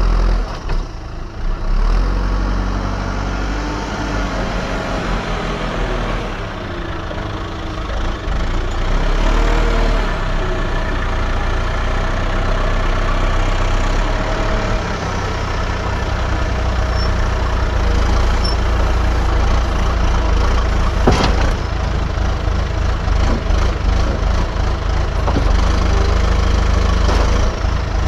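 Diesel engine of an earthmoving machine running steadily while working, its note rising and falling under hydraulic load. A single sharp knock sounds about three-quarters of the way through.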